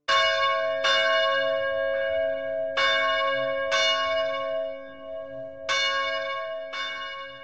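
A church bell struck six times in loose pairs about a second apart. Each strike rings on into the next, so the tones overlap and waver.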